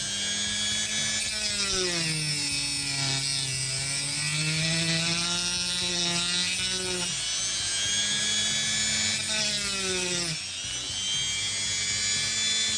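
Rotary tool with a cut-off wheel grinding a slot into a screw head, running continuously. Its motor pitch sags and recovers several times during the cut, over a steady grinding hiss.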